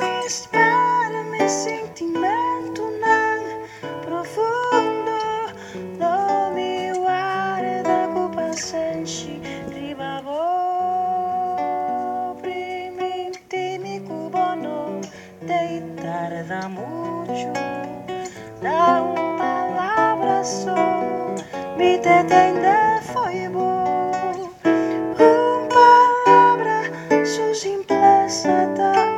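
A woman singing into a microphone, accompanied by an acoustic guitar, amplified through a small PA. About ten seconds in she holds one long note.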